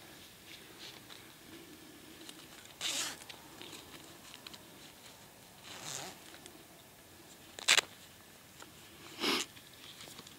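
Handling noise close to the microphone: a few short rustles of clothing and gear, and a single sharp click about eight seconds in, the loudest sound.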